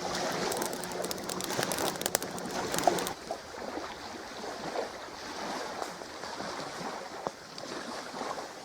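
Campfire crackling, with quick pops over a steady hiss. About three seconds in it drops abruptly to a quieter hiss with only an occasional pop.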